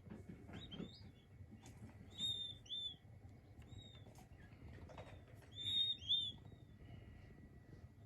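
King quail chicks peeping: short, high, arched chirps, mostly in quick pairs, loudest about two seconds in and again about six seconds in, with fainter peeps between.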